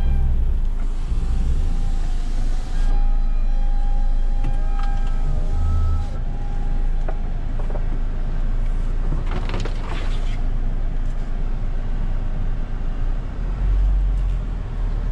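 A 2020 Mahindra Thar's engine running steadily at low speed as the SUV crawls over a rough dirt track, a continuous low rumble heard from the cabin. A thin high tone comes and goes between about three and seven seconds in.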